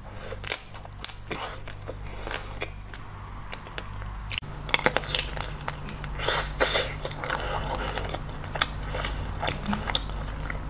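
Close-up eating sounds: biting and chewing chocolate-coated sweets, with short crackles of the chocolate shell breaking, denser after about four seconds. A steady low hum runs underneath.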